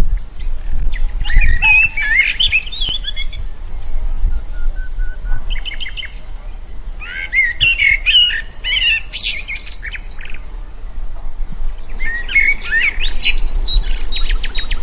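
Birds singing: three bouts of quick chirping and warbling phrases, over a low steady rumble.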